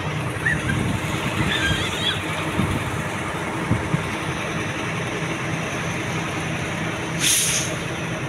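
Engine and road noise of a moving vehicle, heard from inside the cab as a steady hum and rumble, with a few faint squeaks about two seconds in and a short hiss about seven seconds in.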